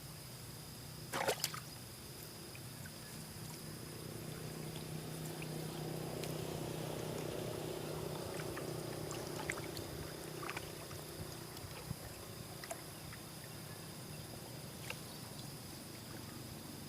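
Water sloshing and trickling as a gill net is handled and hauled through the water, with scattered small splashes and drips and a sharp splash about a second in. A low steady hum swells in the middle, over a steady high whine.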